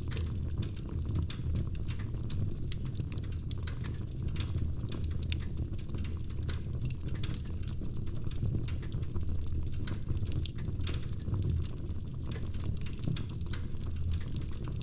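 Wood fire crackling in a fireplace: many irregular sharp snaps and pops over a steady low rumble of burning.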